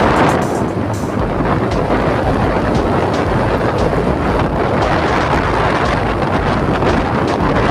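Wind buffeting the microphone: a loud, steady rumbling rush, with a few brief clicks near the start.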